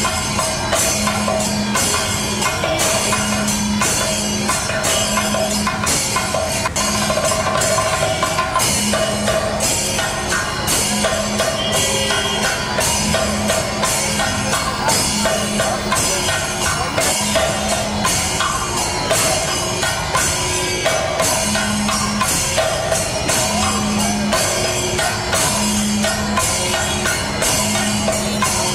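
Music with a steady percussion beat, cymbal- or tambourine-like strikes about twice a second, over recurring held tones.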